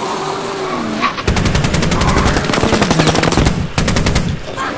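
Mounted machine gun firing a long rapid burst of about two seconds, starting just over a second in, then a second short burst, with a vehicle engine running underneath.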